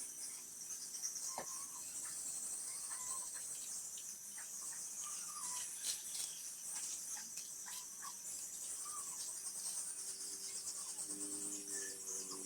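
Insects, crickets by the sound of it, chirring steadily and high-pitched, with scattered faint clicks and short chirps. A low steady hum comes in near the end.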